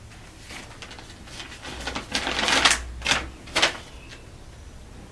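A folded sheet of paper rustling and crackling as it is opened out and handled. The loudest rustle is about two seconds in, followed by two shorter crinkles.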